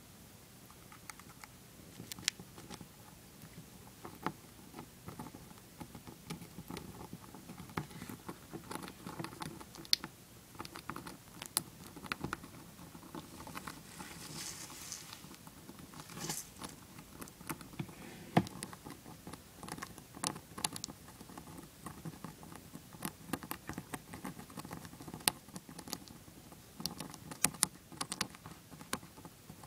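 Dwarf hamster gnawing a shelled peanut: a rapid, irregular run of small crunching clicks, with a brief rustle about halfway through.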